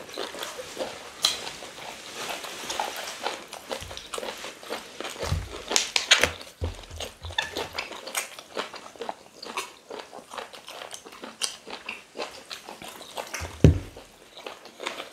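Close-up eating sounds: wet chewing, smacking and biting on pieces of boiled chicken eaten by hand, a dense run of small irregular clicks. A few dull thumps come through, the loudest near the end.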